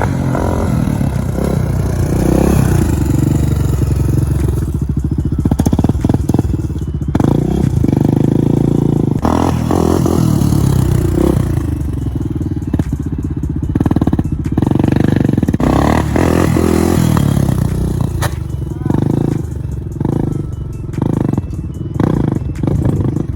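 Honda TRX400ex quad's single-cylinder four-stroke engine, revved hard and eased off again and again as the rider pops wheelies, with some clatter in between.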